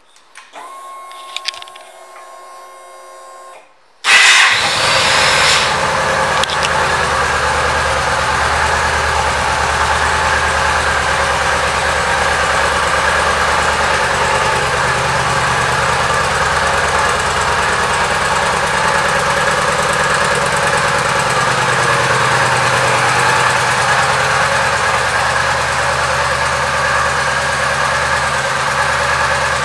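2012 Yamaha V Star 950's V-twin engine being started. After a few quiet clicks and a faint steady whine, it fires abruptly about four seconds in and settles into a steady idle.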